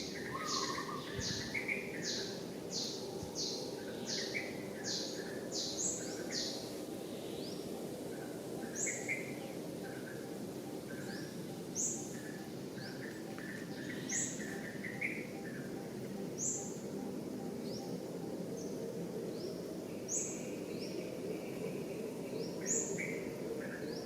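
Birds chirping: a string of short, high, rising chirps, quick at first and then one every two or three seconds, over softer twittering, with a steady background hum of outdoor noise.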